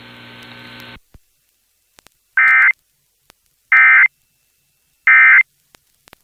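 Emergency Alert System end-of-message data bursts over the radio: three short, harsh digital buzzes about a second and a half apart, the code that closes the severe thunderstorm warning broadcast.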